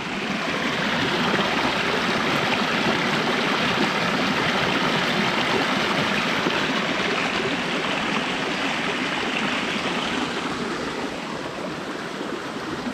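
Floodwater rushing through a swollen wet-weather stream after heavy rain, a steady loud rush of water that eases slightly near the end.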